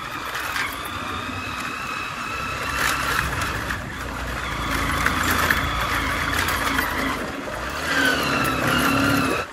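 A motor vehicle moving along with its engine running, under a steady haze of road and wind noise; a whine in the engine sound shifts in pitch near the end.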